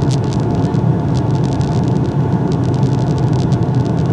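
Boeing 757 jet engines and airflow heard inside the passenger cabin as a steady, loud drone with a strong low hum, and faint crackling ticks on top.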